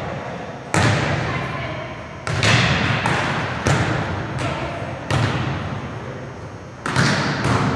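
Volleyballs being struck during serve-receive and passing: five sharp slaps of hand and forearms on the ball, about one and a half seconds apart, each ringing out in the gym's echo.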